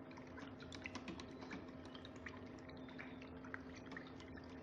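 Faint, scattered light clicks and taps, with a steady low hum underneath.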